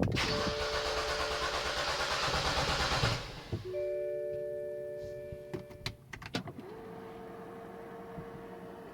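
2007 BMW X5 3.0si's inline-six cranking over on the starter without firing, a crank-but-no-start fault. It cranks for about three seconds and stops suddenly, followed by steady electronic tones, a few clicks and a steady tone at the end.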